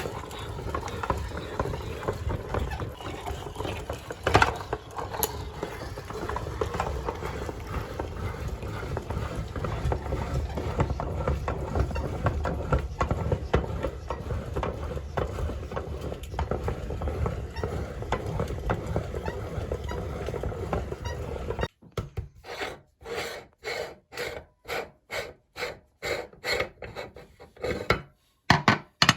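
Meat grinder running, grinding ice cream with a dense rattling and clicking. About three-quarters of the way through, the sound breaks into short bursts with silent gaps between them.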